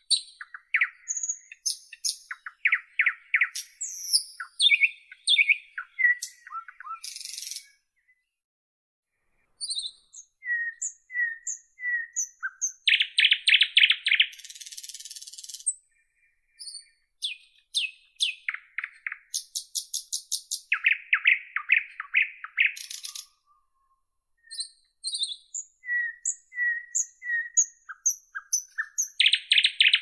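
Nightingale singing a varied song: fast rattling runs, repeated clear notes and high whistled trills, in phrases broken by pauses of a second or two.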